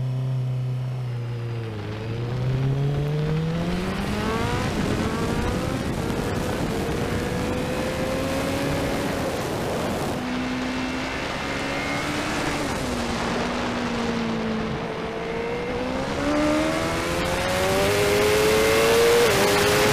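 Superbike engine running hard on track, its pitch climbing under acceleration and dropping back several times over the stretch.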